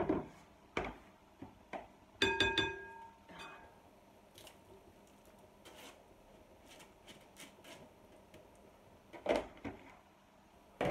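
Fried potato chunks being scraped with a silicone spatula from a metal strainer into a glass bowl of beaten eggs: a ringing clink of metal against glass about two seconds in, then soft scraping and light taps, and a thump near the end.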